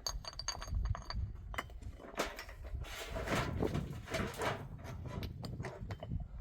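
Irregular knocks and clinks of hard objects being handled, with a ringing clink in the first second and a stretch of scraping noise in the middle.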